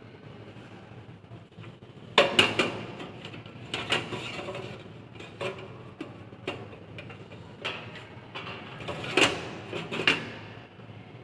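Hard plastic and metal computer parts being handled and fitted in a desktop PC case: about eight sharp clacks and knocks with short sliding scrapes between them, the loudest about two seconds in and about nine seconds in.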